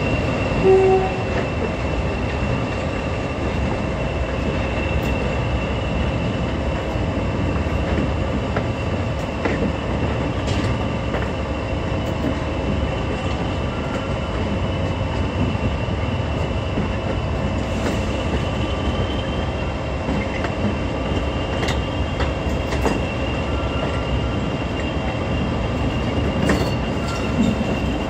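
English Electric Class 40 diesel locomotive running as it moves along the line, a steady engine rumble with a continuous high turbocharger whistle over it. A brief louder note sounds about a second in, and a few light clicks come from the track.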